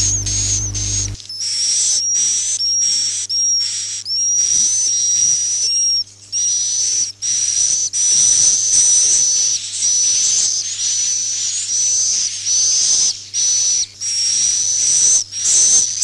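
Swiftlet (burung walet) calls: fast, high-pitched buzzy twittering in runs with short breaks between them. This is the 'inap' roosting call, played as a lure to draw swiftlets into a bird house to roost and nest. A low hum stops about a second in.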